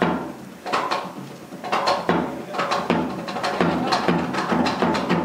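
Balinese kendang drums played as an interlocking pair, struck with a panggul stick and the hand: sharp slaps and deeper drum tones in quick clusters of strokes about once a second.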